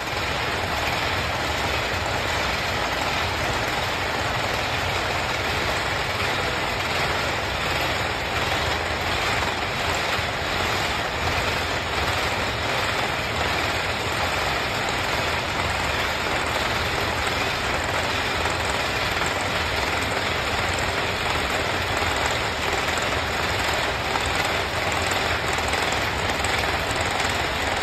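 Ball chain making machine running, a steady, dense mechanical clatter as it feeds and forms the wire.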